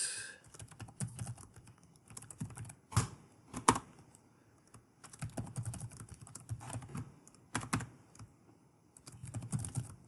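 Computer keyboard typing in short bursts of key clicks with pauses between them, with a couple of sharper clacks about three to four seconds in.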